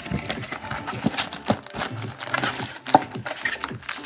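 Cardboard trading-card box being opened and its foil-wrapped card packs tipped out and handled on a table: an irregular run of knocks, taps and crinkles, with one sharper knock about three seconds in.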